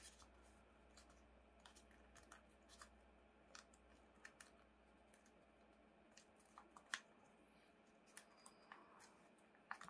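Near silence, with faint, scattered crackles of origami paper being folded and creased by hand; one crackle about seven seconds in is a little louder.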